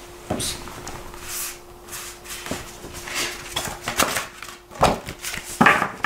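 A paper booklet being handled: rustling paper with a few light taps and clicks, over a faint steady hum.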